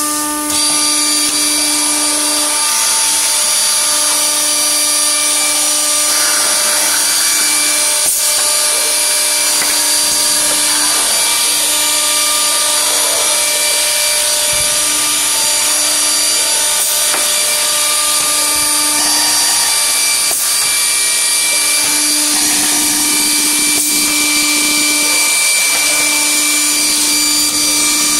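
CNC drilling and milling center for furniture panels working a particleboard panel: the spindle motors run with a steady whine of several high tones while the bits drill and mill the board. A lower hum comes and goes every few seconds.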